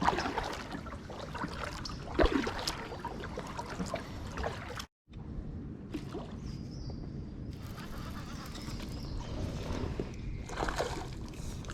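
Water sloshing and gurgling around a kayak as it is paddled, with a few louder paddle splashes; the sound drops out for a moment about five seconds in.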